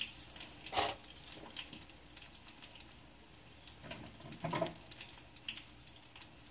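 Quiet kitchen prep handling: scattered light clicks and rustles, with a louder clatter about a second in and another around four and a half seconds in.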